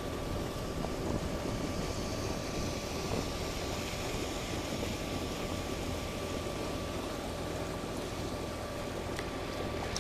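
Boat engine running with a steady low drone as boats pass in a channel.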